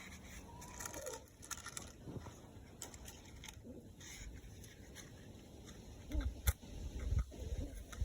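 Crunching and crackling of dry fuel as a bee smoker is packed and lit, with scattered clicks and a couple of sharper knocks about six and seven seconds in.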